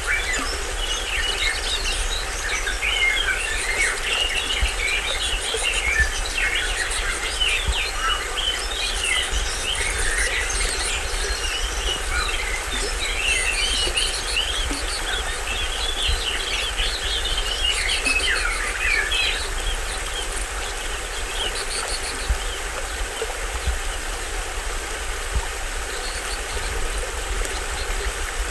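Small stream waterfall running steadily, with many birds chirping quickly over it; the chirping is dense for about the first twenty seconds, then thins out.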